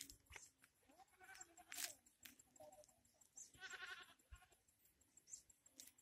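Faint bleating, two short quavering calls about two and a half seconds apart, over scattered soft crunches of footsteps on a dirt path.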